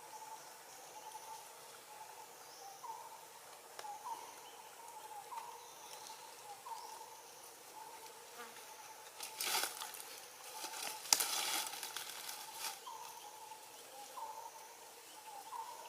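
Steady insect drone with short rising chirps repeating about every second and a half. A few seconds of scratchy noise come about ten seconds in.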